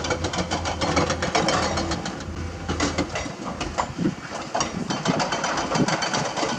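Heavy diesel earthmoving machinery running steadily, with frequent sharp clanks and knocks over the engine.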